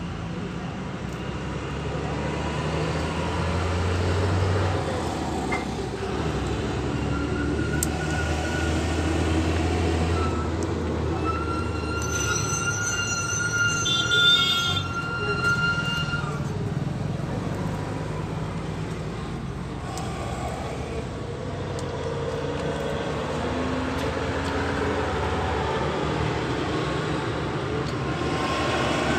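Steady low rumble of vehicles running nearby. A high, drawn-out tone sounds for a few seconds near the middle, such as a horn or brake squeal.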